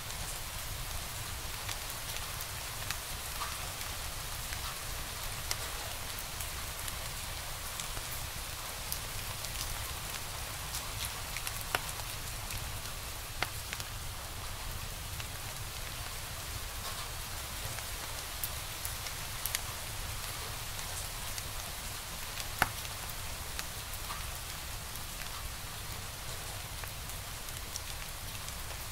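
Wood fire crackling in a fireplace: a steady hiss with many irregular sharp pops, one of the loudest about three-quarters of the way through, over a low rumble.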